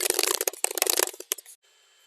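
Computer keyboard typing played back at double speed: a fast, dense run of key clicks that thins out and stops about a second and a half in.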